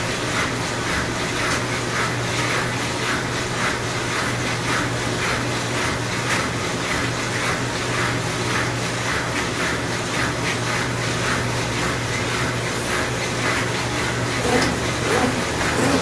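Electrolux LTM16 direct-drive top-load washing machine running, a steady low motor hum under a repeating swish as the basket turns the load.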